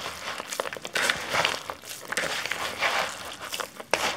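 Rolled oats with dried cranberries, raisins and nuts rustling and crunching as a hand mixes them in a bowl, in repeated strokes.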